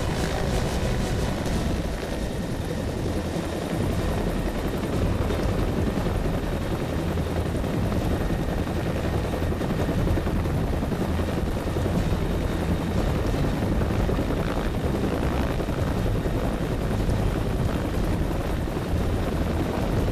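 Military utility helicopter hovering low overhead, its rotor and engine noise running steadily throughout.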